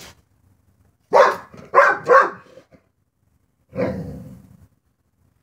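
Dog barking at a cat outside the window: three quick, loud barks about a second in, then a longer, deeper bark near the end.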